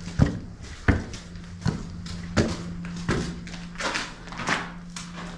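Regular thumps, about one every 0.7 seconds for the first three seconds, over a steady low hum.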